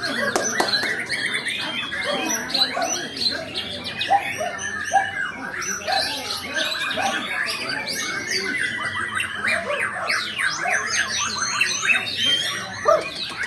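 White-rumped shama singing: a fast, unbroken run of varied whistles, sweeps and chattering notes.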